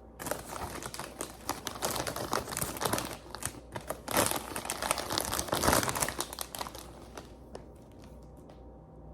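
Crinkling of a foil potato-chip bag as a hand rummages through the chips. The rustling is busy and crackly for about seven seconds, then dies away.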